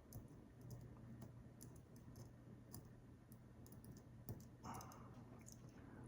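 Faint, scattered light clicks of small metal lock parts, the pin tumblers and springs of a disassembled padlock, being handled and set down on a table, over a faint steady low hum.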